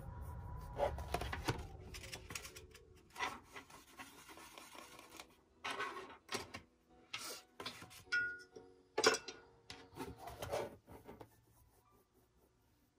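Paintbrush rubbing acrylic paint onto a canvas panel in short, irregular scrubbing strokes, with a plastic palette tray handled about six seconds in.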